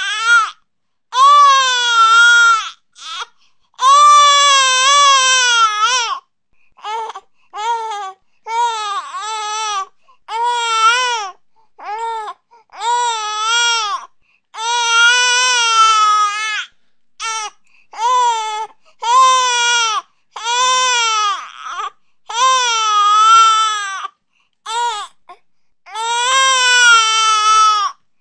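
Infant crying: a long run of loud wails, each lasting about half a second to two seconds with short breaths between, the pitch rising and then falling within each cry.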